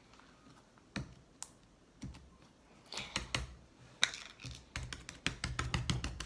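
Homemade slime mixed with putty being squeezed and worked by hand, making small sharp clicks and pops. They come singly at first, then in a rapid run near the end.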